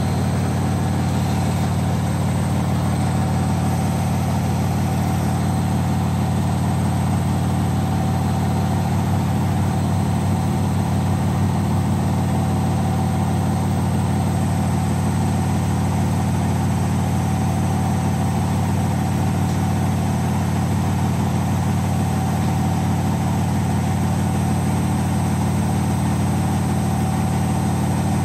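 Bush front-loading washing machine on its 1200 rpm final spin, the drum running at speed with a steady low hum that holds unchanged. The spin is extremely unbalanced.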